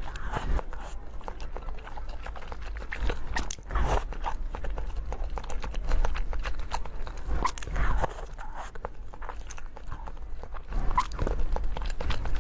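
A person biting and chewing crunchy food, with irregular crisp crunches.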